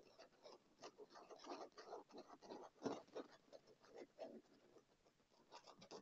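Fingernails scratching and tapping fast on a leather chair arm: quick, irregular soft strokes, with one louder tap about three seconds in.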